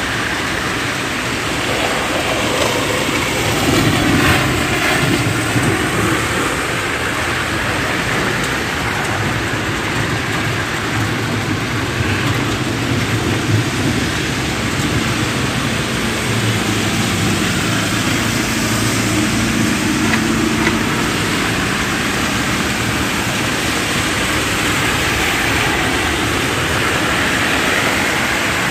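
Steady rain on a flooded street, with cars now and then driving through the standing water.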